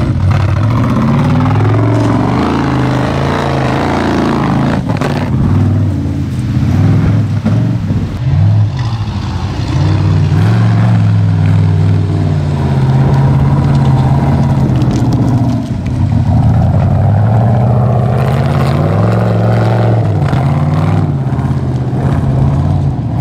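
Off-road prototype buggy's engine revving up and down under load as it climbs steep dirt slopes, its pitch rising and falling again and again.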